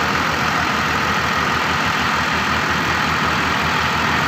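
Two tractors' diesel engines, a green John Deere 5510 and a blue Sonalika, running steadily and hard while chained back to back and pulling against each other in a tug-of-war.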